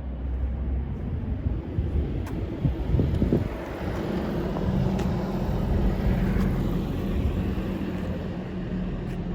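A heavy machine's engine running steadily, its pitch shifting up about halfway through, with wind on the microphone.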